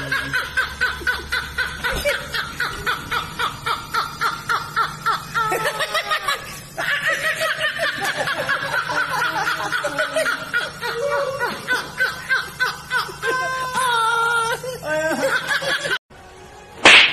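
A man laughing hard and without stopping, in fast, rapid-fire bursts of several a second. It cuts off suddenly near the end, and a short, loud whoosh follows.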